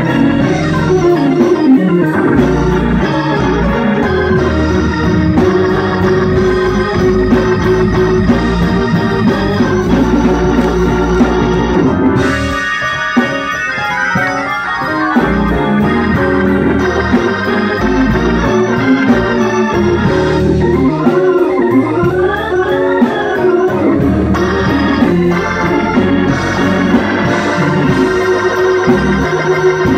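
Electric church organ playing gospel music: full sustained chords and fast up-and-down runs over a steady ticking beat. The sound thins out briefly a little before the middle.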